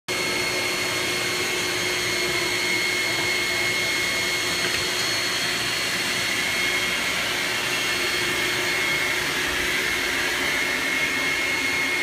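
Upright vacuum cleaner running steadily: a constant rush of air with a high motor whine held at one pitch.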